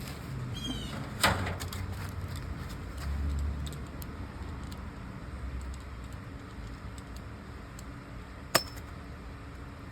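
Hand tools clinking and scraping on metal while working a stubborn part loose, with two sharp metallic clanks, one about a second in and one near the end, and a brief squeak just before the first, over a low steady hum.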